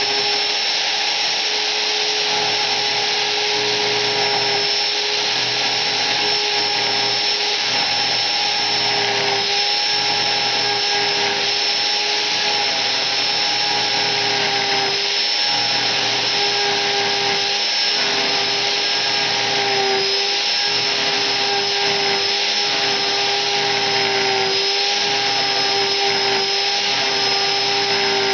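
High-speed motor driving the rotating cutter of a rose engine, running steadily with a constant whine while it carves a rosette pattern into the end of a turned wooden piece. The pitch wavers slightly now and then as the cut loads it.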